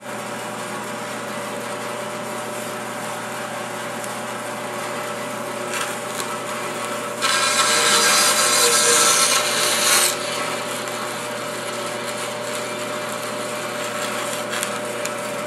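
Band saw running steadily, then about seven seconds in its blade cuts through a strip of wood for about three seconds, much louder, before the saw runs free again.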